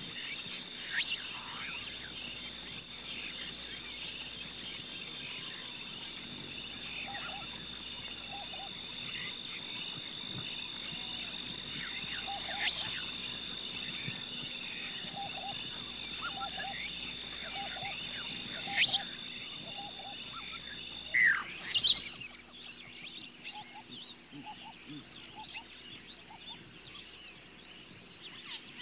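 Wildlife chorus: a steady, rapidly pulsing high-pitched chirring with scattered bird chirps and short, low repeated croaks. The high chirring cuts off suddenly about three quarters of the way through, leaving fainter bird calls and croaks.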